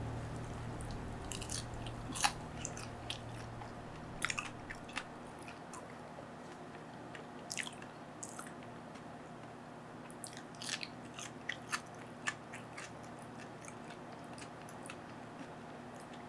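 A person eating: irregular small sharp clicks of biting and chewing, faint and scattered. Background music fades out over the first few seconds.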